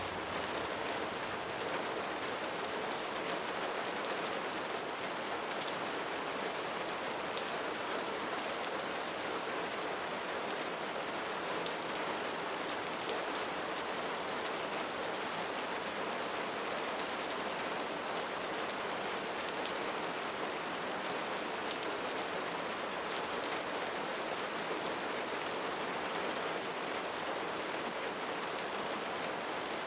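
Steady rain falling on leaves, an even hiss with faint scattered drop ticks.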